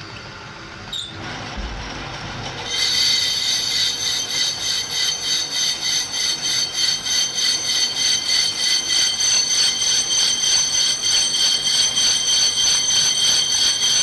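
Lathe cutting a car brake disc: after a quieter machine hum and a click, the cutting tool bites in about three seconds in and the disc face gives a loud, high-pitched ringing squeal that pulses quickly and evenly as the disc turns.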